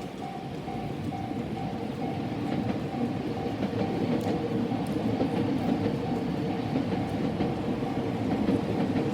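A Japanese level-crossing warning bell ringing in a steady repeating clang. From about two seconds in, a train passes over the crossing, its rumble and wheel clatter on the rails rising and staying loud.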